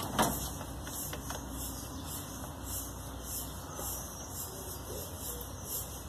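Low background hiss with a sharp click just after the start and a fainter click about a second in, from handling the test lead wired to the washing machine's drain pump; the pump itself is not yet running.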